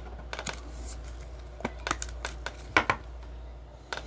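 A trading card being fitted into a clear rigid plastic card holder, with scattered light plastic clicks and taps and a sharper pair of clicks about three seconds in.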